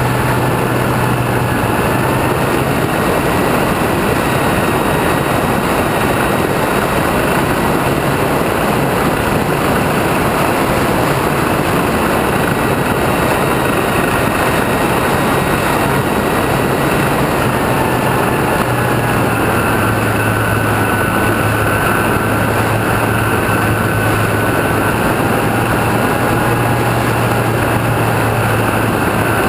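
RC plane's motor and propeller running steadily in flight, heard from the onboard camera under heavy rushing wind noise. Its whine drops slightly in pitch about two-thirds of the way through, as the throttle eases.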